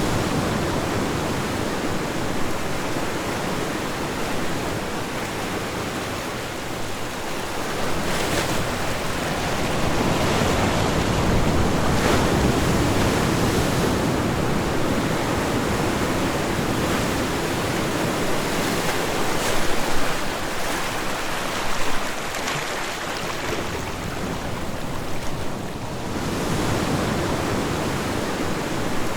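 Ocean waves breaking and washing on a shore, a continuous surf that swells and ebbs every several seconds, with a few louder splashes.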